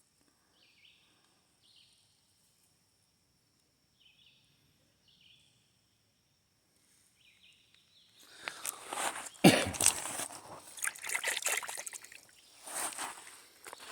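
Faint high chirps, then about eight seconds in, several seconds of loud splashing and rustling in shallow creek water, with one sharp thump.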